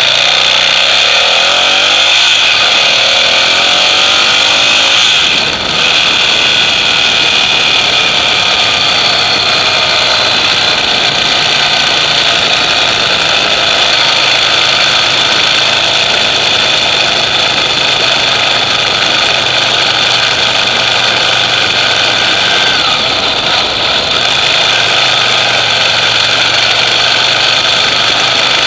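Ducati Monster EVO air-cooled L-twin engine running through its stock exhausts. The engine speed wavers during the first five seconds or so, then it settles into a steady idle.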